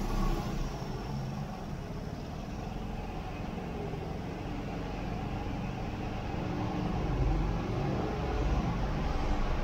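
Motorbike engine running steadily while riding, with a low rumble of road noise and city traffic around it.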